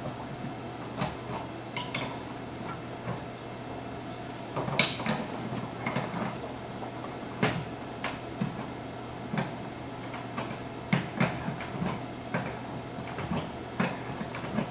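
Irregular metallic clinks and taps of an adjustable wrench on the brass quick-connect fittings as the mini-split line-set nuts are threaded onto the outdoor unit's service valves. The sharpest clink comes about five seconds in.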